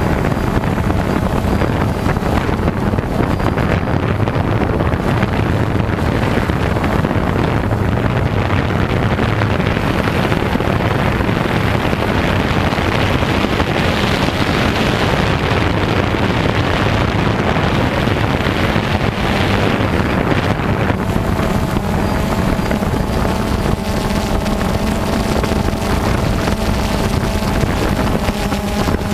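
Multirotor drone's motors and propellers running steadily, heard from the camera carried on board, with wind on the microphone. A steadier hum of several tones comes through about two-thirds of the way in.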